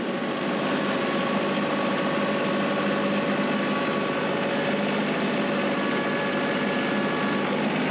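Compact tractor engine running steadily while its front loader lowers a round hay bale into a ring feeder, with a faint high whine that comes and goes.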